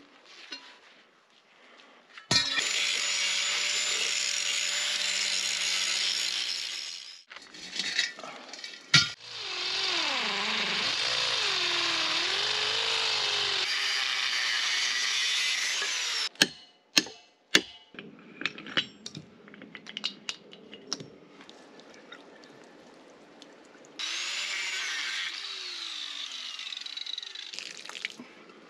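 Angle grinder cutting into a steel gas cylinder in two long runs, its pitch sagging and recovering under load in the second. Between cuts come sharp metallic knocks and scattered clicks from handling the cylinder, and a quieter run of steady noise near the end.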